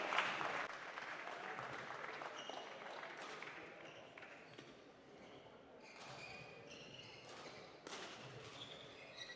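Applause fading out in the first second, then a quiet sports hall with a few short squeaks of court shoes on the floor and a single thump near the end.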